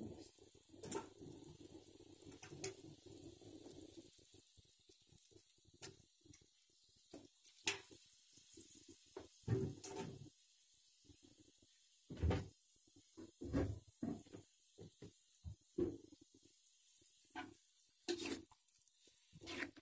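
Sawi greens and tempe simmering in a little liquid in an aluminium wok, with faint, irregular bubbling and popping. A few louder knocks come through, one near the end as the ladle is moved in the wok.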